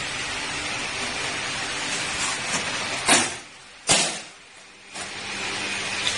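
Steady background hiss, broken by two sharp knocks about three seconds in, less than a second apart.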